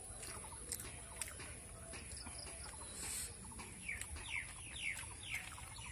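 Bird calls: a run of five or six quick falling chirps about four seconds in, over faint scattered clicks and chewing sounds of someone eating by hand.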